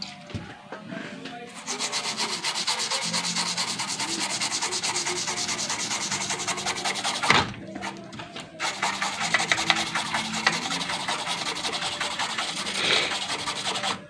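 Fast scrubbing against the solder side of a circuit board, a dense rasping run of rapid strokes that breaks off for about a second around seven seconds in, then carries on.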